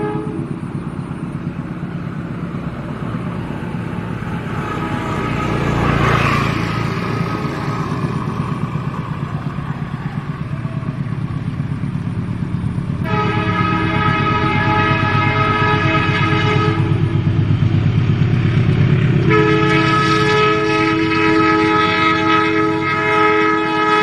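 KAI CC 201 diesel-electric locomotive sounding its multi-note air horn as it approaches: the tail of one blast at the start, a long blast of about four seconds in the middle, and another long blast from about 19 seconds on. These are the long-horn Semboyan 35 signal, heard over the rumble of its diesel engine, which grows louder as it nears.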